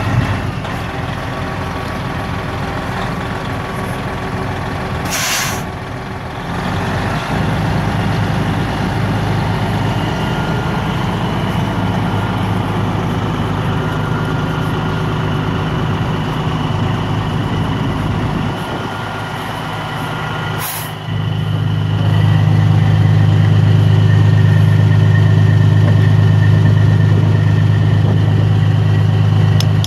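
Semi-truck diesel engine idling steadily, with two short sharp hisses of air, about five seconds in and again about 21 seconds in; after the second hiss the engine sounds louder.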